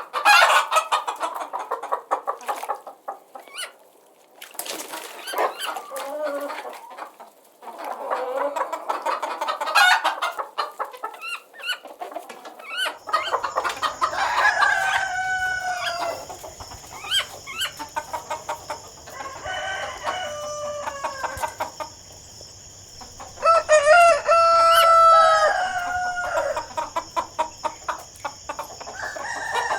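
Chickens clucking in a rapid run of short calls, then, after a change in recording about halfway, a rooster crowing several times over a steady high-pitched whine.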